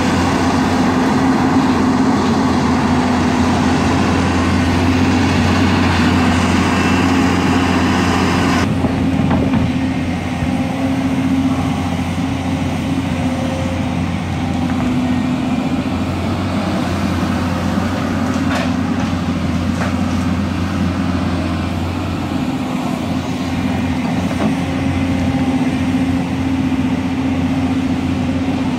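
Hyundai crawler excavator's diesel engine running steadily under load as the bucket digs into soil, a continuous drone that turns duller about nine seconds in.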